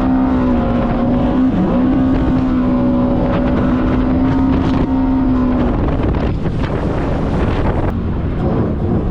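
Yamaha GP1800R WaveRunner engine running at speed, a steady whining note that dips and recovers about one and a half seconds in, then drops away about six seconds in, leaving the rush of wind and water.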